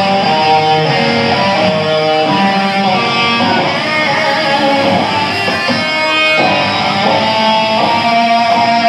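A live band playing, with an electric guitar out front holding long sustained notes.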